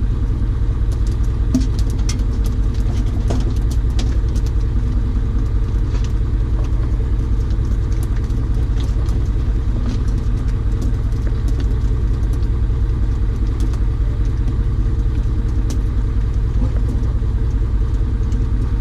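Steady low engine rumble with an even pulsing throughout, and faint scattered ticks over it.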